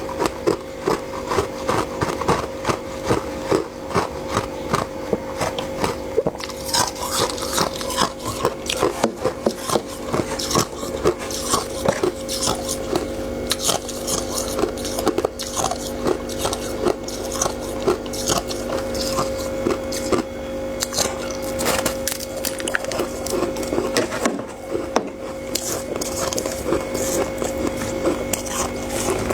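Close-up crunching and chewing of soft freezer frost, a dense run of quick crisp crackles, over a steady low hum.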